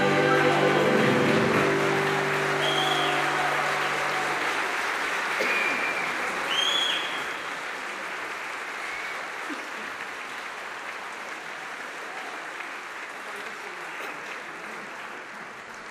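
A men's choir holds its final chord, which ends about four and a half seconds in, while the audience applauds. The applause carries on and slowly fades.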